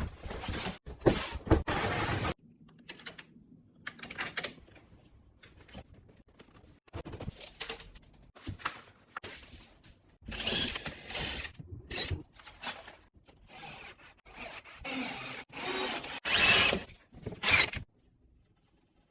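Intermittent mechanical work noises as an integrated dishwasher is fitted: irregular rubbing, clunks and ratchet-like clicking in short bursts, stopping near the end.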